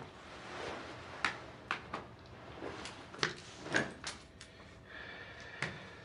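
A string of short, sharp knocks and clicks over soft rustling, as a leather jacket is taken off and set down and a man moves about the room.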